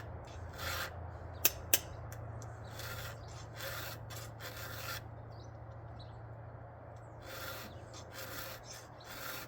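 Chainsaw chain being hand-sharpened with a round file: repeated short rasping strokes across a cutter tooth and its gullet, in runs with a pause in the middle, over a steady low hum. The tooth is being filed back after the chain struck rock. Two sharp clicks come about a second and a half in.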